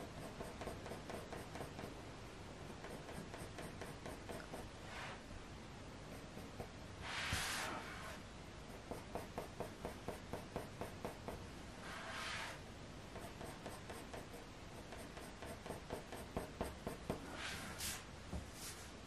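Faber-Castell Polychromos coloured pencil scratching on hot-press watercolour paper in short, quick fur strokes, about three a second. A few longer, louder swishes come in among them.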